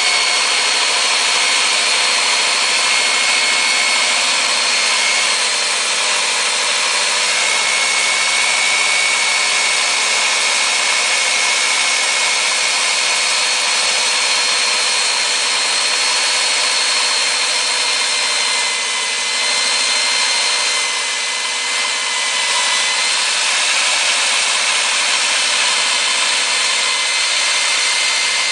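Kor-It K804 hand-held core drill's 1500-watt electric motor running steadily, a high motor whine over a dense grinding hiss, easing slightly for a moment about two-thirds of the way through.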